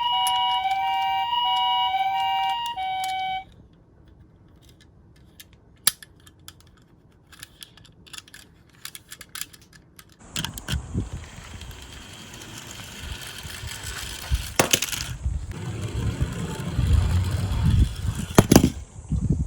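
Toy ambulance's electronic two-tone hi-lo siren, alternating between two pitches about once a second and stopping about three and a half seconds in. Scattered small clicks of plastic toys follow, then from about ten seconds in a steady rattling, whirring noise with knocks.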